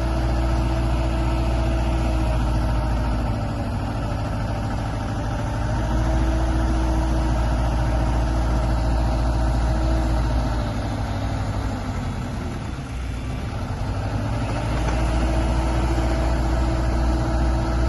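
Kubota KX161-3SZ tracked excavator's diesel engine running steadily. Its tone and level sag twice, the deeper sag about two thirds of the way through, then recover.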